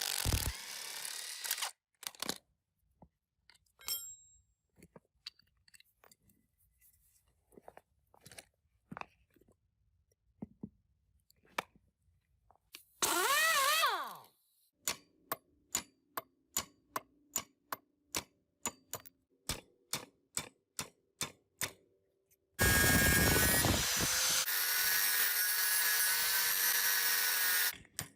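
Workshop tool sounds: scattered clicks and taps, then a short power tool burst that rises and falls in pitch. Next comes a run of evenly spaced sharp taps, about two a second, and near the end a power tool runs loudly and steadily for about five seconds.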